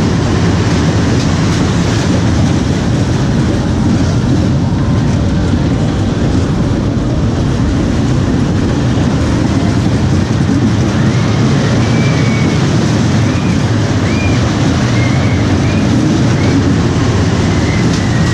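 Family roller coaster train running along its steel track, heard from on board: a steady low rumble of the wheels and cars.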